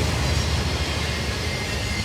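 Cars of a long CSX freight train rolling past: a steady rumble and rattle of wheels on the rails, with a faint high squeal coming in near the end.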